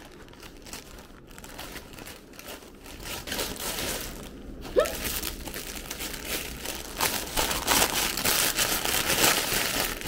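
Gift-wrapping paper being torn open and clear plastic packaging crinkling as a plush toy is unwrapped. The crinkling grows louder in the second half, with one sharp snap about halfway through.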